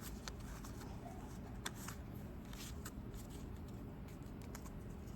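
Pokémon trading cards being handled, with faint rustling and soft, scattered clicks as the cards from a freshly opened booster pack are slid and flipped one by one. A steady low hum runs underneath.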